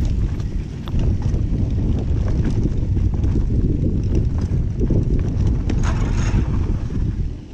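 Mountain bike descending a rough trail: wind buffeting the mounted camera's microphone over the bike's rattling and knocking as it runs over rocks and roots, with a brief scraping hiss about six seconds in.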